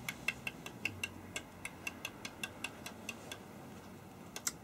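Rapid run of small sharp clicks, about four a second, that stops a little past three seconds in, then two more quick clicks near the end.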